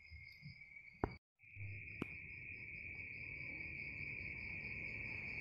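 An insect's steady, high-pitched trill, continuous apart from a brief break a little after a second in, after which it comes back louder; a couple of faint clicks.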